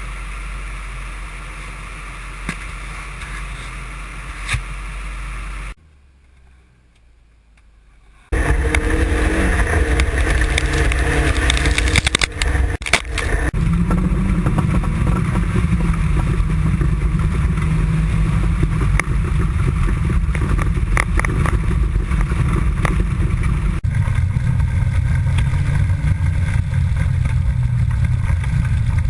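1985 Toyota MR2's 1.6-litre four-cylinder engine heard onboard: a steady idle-like hum, then about six seconds in the sound drops away almost to quiet. About eight seconds in it comes back loud, the engine running hard under load with a constant rush of noise, and a few sharp knocks about twelve seconds in.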